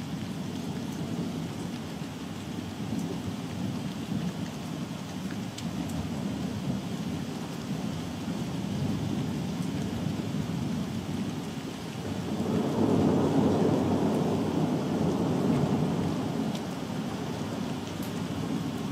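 Continuous rolling thunder, an unbroken low rumble that swells louder about two thirds of the way through and then eases back, with rain falling.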